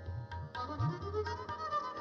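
Indian classical instrumental music: a melodic line of held, gliding notes over tabla, whose low bass-drum strokes bend upward in pitch.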